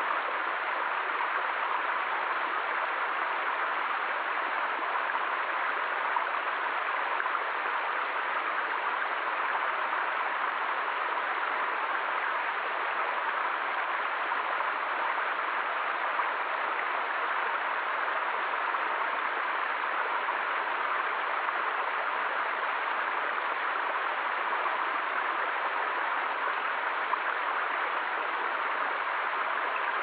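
Small waterfall splashing steadily into a shallow rocky stream pool: a constant, even rush of water that doesn't change.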